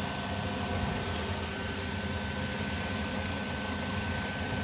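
Steady hum and hiss, with a constant high whine over it, that does not change.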